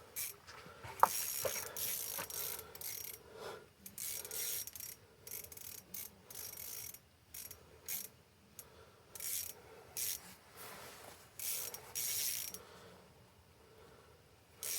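Fishing reel mechanism whirring and clicking in short, irregular bursts as the line is worked.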